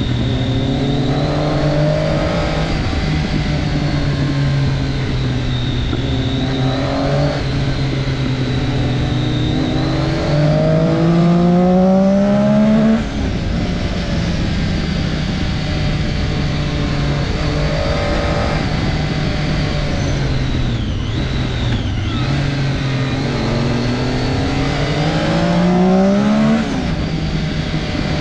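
Triumph Daytona 675's three-cylinder engine running on the move, with two long rising revs under acceleration, about ten seconds in and again near the end. Each rev is louder and drops away suddenly at its peak.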